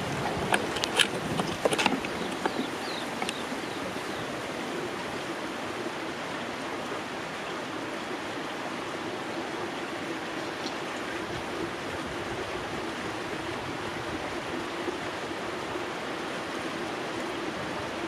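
Steady outdoor background hiss with a faint low hum running through it, after a few sharp clicks in the first two seconds.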